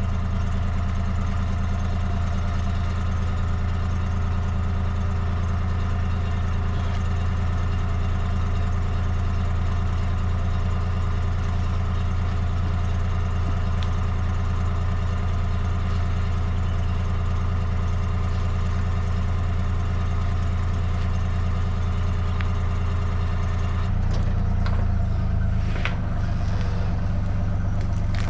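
Home-built bandsaw sawmill running steadily, its motor holding a low even drone as the band blade cuts through an elm log. About four seconds before the end the sound shifts, with a few ticks and scrapes.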